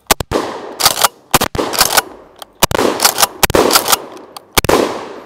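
Mossberg Maverick 88 12-gauge pump-action shotgun firing birdshot: five shots about a second apart, each with an echo trailing off, and the pump action racked with a quick clack-clack between shots.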